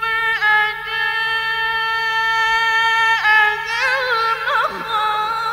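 A male Qur'an reciter chants in a melodic, drawn-out style. He holds one long high note, then bends it in ornamented turns about three seconds in and again near the end.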